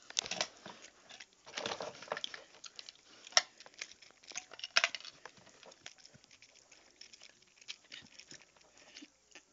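Handling noise close to the microphone: irregular rustling and scattered clicks as the camera is moved about, with a sharp click about three and a half seconds in and another near five seconds.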